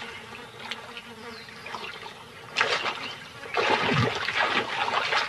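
Hippos moving in a pool, water splashing and sloshing: a short splash about two and a half seconds in, then a longer spell of splashing from about three and a half seconds.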